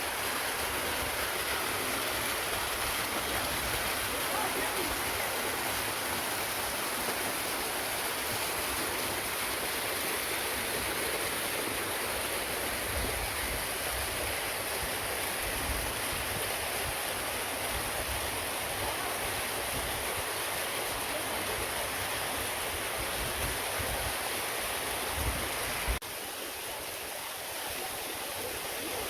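Steady rushing of falling water from a waterfall, a continuous hiss spread across all pitches. About three seconds before the end it drops abruptly to a quieter level.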